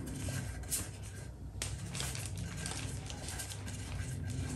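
Soft rustling and scraping as a white IKEA LACK table leg is twisted by hand onto a double-ended screw, with plastic packaging film crinkling under it, and one sharp click about a second and a half in.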